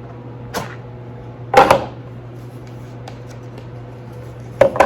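Small cardboard gift box and its packaging being handled and opened: a light knock, then two loud sharp clacks about a second and a half in, and another close pair near the end.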